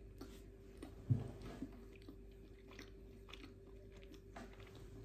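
A person chewing a mouthful of brioche close to the microphone: faint, soft mouth sounds and small clicks, with one louder moment about a second in.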